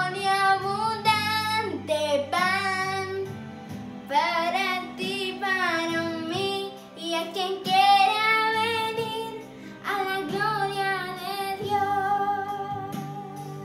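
A girl singing a Spanish-language worship song in long, wavering held notes over an instrumental accompaniment.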